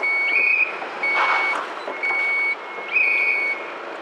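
Vehicle reversing alarm beeping steadily, about one half-second beep a second, with a second slightly higher-pitched beeper overlapping on some beeps. A short hiss comes about a second in.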